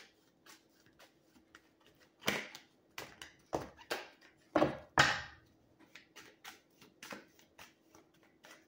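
Tarot deck being shuffled by hand: a string of soft card clicks and taps, with louder swishes of the cards a little past two seconds and again around four and a half to five seconds in. A faint steady hum lies underneath.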